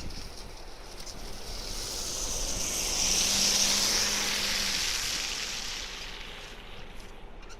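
A vehicle passing by: tyre and road hiss swells to a peak three to four seconds in, with a low steady hum, then fades away.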